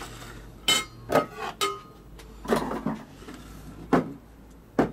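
Dishes and stainless steel bowls handled on a table: about six sharp knocks and clinks, a couple of them ringing briefly.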